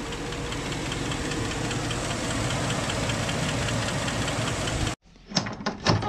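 Chevrolet Tahoe V8 idling steadily with a light, even ticking several times a second. About five seconds in the sound cuts off abruptly, and a few sharp metal clicks follow as a barn door's latch is worked.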